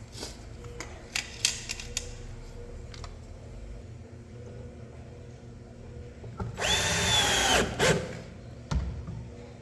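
Cordless drill-driver running for about a second, its motor whine rising, holding, then dropping off, typical of driving a screw to fasten a drawer slide. Earlier there are a few sharp clicks and knocks of hardware being handled.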